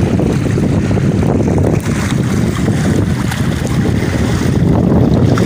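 Wind rumbling on the microphone over choppy sea water washing against rocks, a steady loud noise without distinct events.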